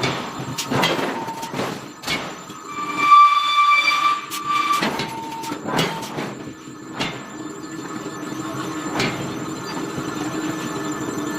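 Metal clanks and knocks from forging iron, with a high metallic ringing squeal lasting about a second and a half partway through, then a steady machinery hum with occasional knocks.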